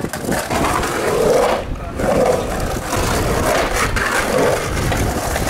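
Skateboard wheels rolling over rough, crusty concrete: a loud, rough rumble that eases off for a moment near two seconds in, then carries on.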